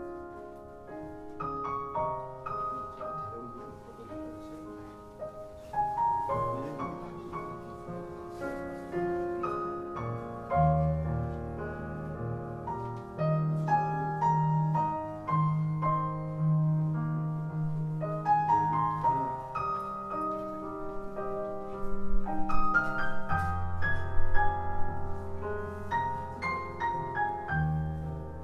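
Piano music played back through MBL omnidirectional (360-degree) loudspeakers. Deep sustained bass notes join the piano about ten seconds in.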